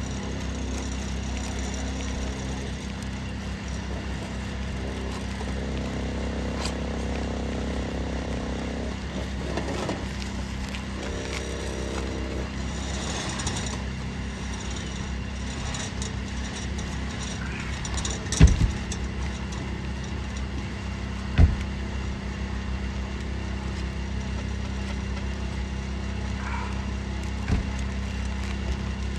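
A steady low engine hum runs throughout. Three sharp knocks in the second half are typical of roofing tools striking asphalt shingles while the tabs are worked loose.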